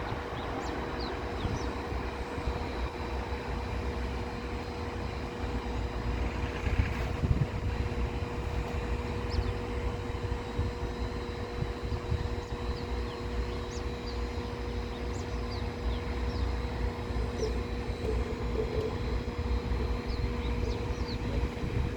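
Steady low rumble of a distant jet airliner's engines with a constant hum, buffeted by wind on the microphone, and faint bird chirps scattered through.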